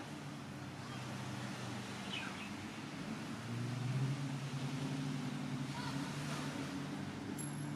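Steady low hum of a CRN superyacht's engines running as it leaves port, getting louder about halfway through. Faint bird chirps sound twice.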